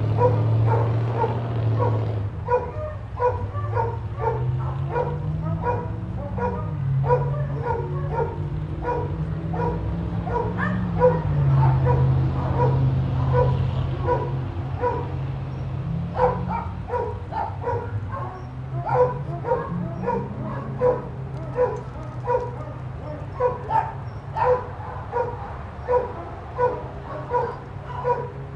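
Small dog barking over and over in a steady string of short, sharp barks, about one or two a second. A low droning hum runs underneath, slowly rising and falling in pitch.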